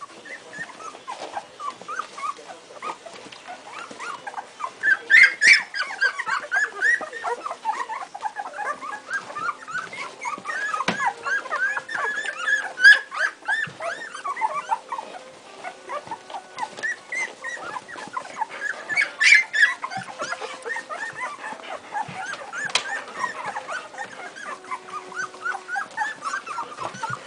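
Litter of two-week-old Airedale terrier puppies squeaking and whimpering, many short high cries overlapping, louder for a moment about five seconds in and again near the middle.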